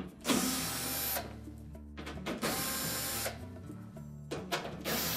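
Cordless drill-driver running in three short bursts of about a second each, backing out the screws that hold the back cover onto a dryer's console, with background music underneath.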